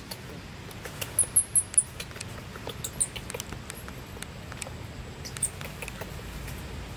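Newborn long-tailed macaque squeaking: a quick run of about five high-pitched squeaks a second in, then a couple of single squeaks, the calls of a hungry infant wanting to nurse. Faint scattered clicks underneath.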